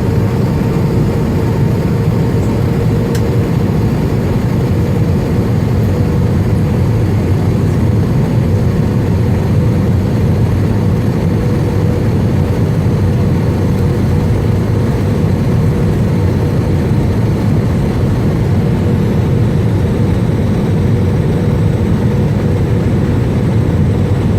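Airliner cabin noise: a steady rumble of jet engines and airflow heard from inside the passenger cabin, with a faint steady hum.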